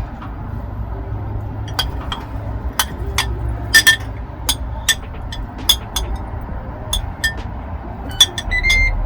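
Kitchenware clinking: a dozen or so sharp, ringing clinks at irregular intervals over a low steady hum.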